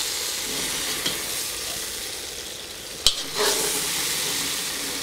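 Mushrooms sizzling in hot oil in a kazan as they are lifted out with a metal slotted skimmer. A steady frying hiss, with one sharp click about three seconds in and a brief louder sizzle right after.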